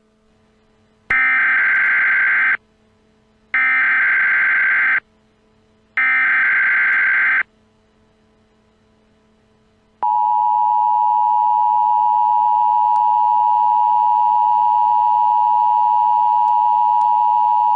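Emergency Alert System opening: three short bursts of SAME header data screech, evenly spaced, then after a pause the steady two-tone EAS attention signal held for about eight seconds, announcing an emergency alert.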